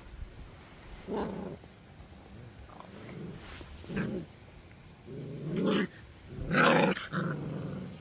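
Central Asian Shepherd (Alabai) puppies growling in play: a string of about five short growls, longer and louder in the second half.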